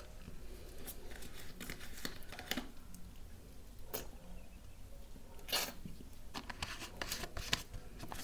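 A person drinking lassi from a carton in close-up: irregular swallows and wet mouth clicks, the loudest about five and a half seconds in.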